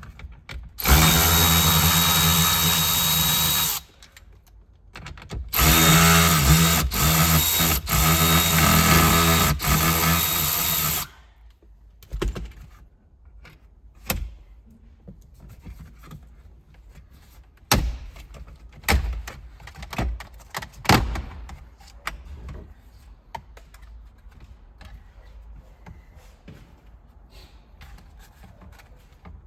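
A power tool spinning a 7mm socket on a 1/4-inch wobble extension, run in two bursts, the second one stuttering as the trigger is briefly let off a few times, driving the fasteners of the truck's seat or console. After that come scattered clicks and knocks of parts and tools being handled.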